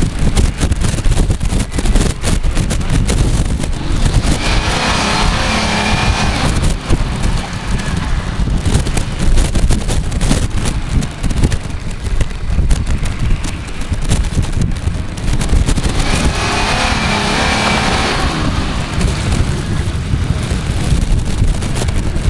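Off-road 4x4 SUV's engine running as it crawls through mud and over mounds, under heavy wind rumble on the microphone. The sound gets louder and brighter twice, for about two seconds each time.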